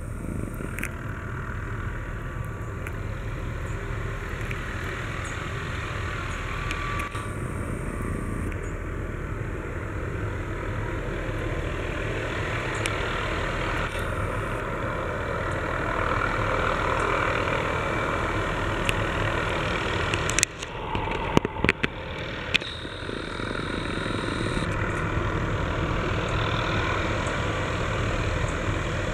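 MD 520N NOTAR helicopter's turbine and main rotor heard from a distance as a steady drone, slowly growing louder as it hovers closer. A few sharp clicks come about two-thirds of the way through.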